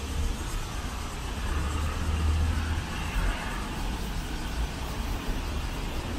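Road traffic on a city street: a steady low rumble of engines and tyres, with a vehicle passing close and swelling louder about two seconds in.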